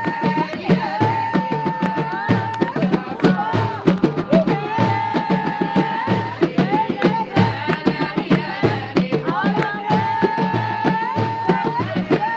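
North African folk music: a fast, dense beat of drums and percussion under a melody of long held notes that bend up or down at their ends.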